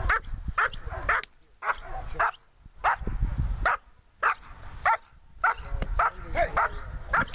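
Black German Shepherd barking repeatedly and fast, about two sharp barks a second, as it pulls on the leash toward the helper with the bite sleeve in Schutzhund protection work.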